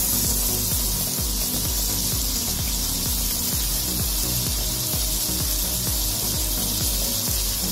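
Young jackfruit gudeg and rebon shrimp stir-frying in a wok: a steady sizzle with the scrape and rub of a wooden spatula, over background music.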